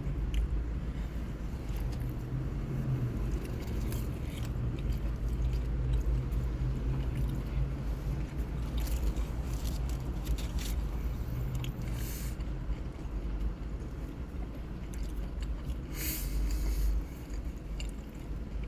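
Car engine idling, heard inside the cabin as a steady low hum, with scattered bites, chewing and scrapes of someone eating fast food.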